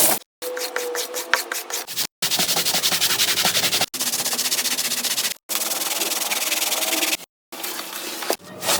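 Scrubbing and scraping on a soiled, muddy carpet: a steady, fast rasping scrub, heard as a string of short clips cut one after another, each a second or two long.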